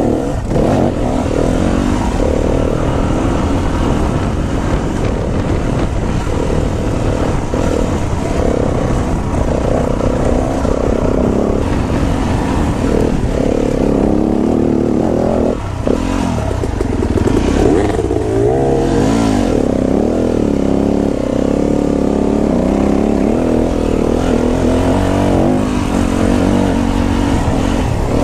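Yamaha enduro dirt bike engine heard close up from the bike itself, revving up and down with the throttle as it rides a twisty trail, with a brief drop a little past halfway.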